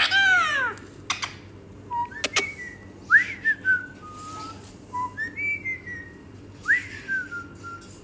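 Indian ringneck parrot whistling: a string of about six short whistles, most sliding quickly up and then falling away, with a couple of sharp clicks in between.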